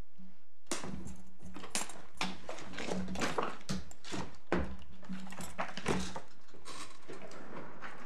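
Paper rustling and light knocks as pages of court bundles are leafed through and handled, an irregular run of short rustles starting just under a second in.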